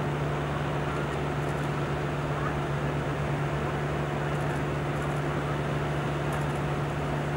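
Diesel semi-truck idling: a steady low drone with an even hum.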